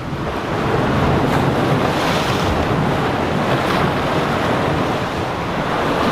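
Ocean surf washing against jetty rocks, mixed with wind buffeting the microphone. The rushing noise swells about a second in and stays up.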